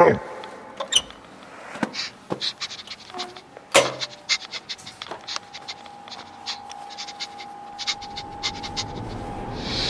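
Footsteps and handling knocks as a person walks out through a door, with one loud clunk about four seconds in. A faint steady tone comes in about halfway.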